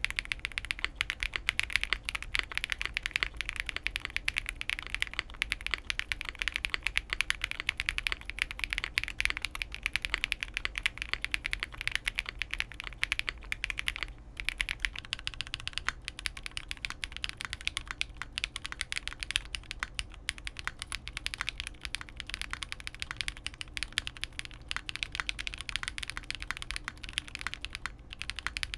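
Fast, continuous typing on a custom SPACE65 R3 mechanical keyboard with an FR4 plate, lubed and filmed 桃夭 (Taoyao) switches and GMK Modern Dolch keycaps. After a short break about halfway through, the typing continues on an S68m with a POM plate, lubed NightSakura switches and EPBT PBT keycaps.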